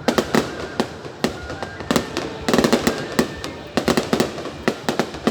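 Fireworks display: aerial shells bursting in a rapid, irregular series of sharp bangs, with denser clusters of reports about halfway through and near the end.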